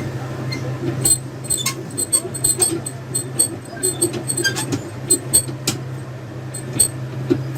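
Steady low hum of a BGA rework station's heater blower running, with a scatter of small sharp clicks and ticks from a few seconds in until near the end.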